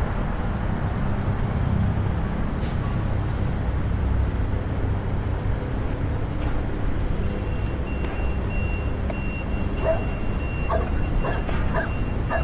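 Added city street ambience: steady traffic rumble, with a dog barking several times near the end and a thin steady high tone coming in about halfway through.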